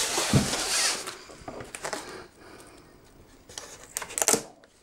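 Packaging being handled and opened: a scraping rustle of the box at the start, then a few short scrapes and a sharp tearing sound about four seconds in as the tape on the box is pulled.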